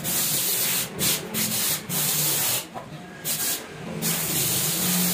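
Hand scrubbing the grimy steering rack and subframe, a run of irregular rough rubbing strokes with short pauses between them.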